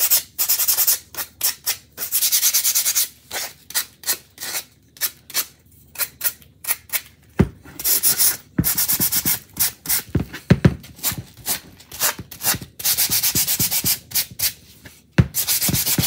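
Hand sanding block scraping back and forth along the painted edges of a wooden riser, distressing the paint. Quick strokes come in short runs with brief pauses between them.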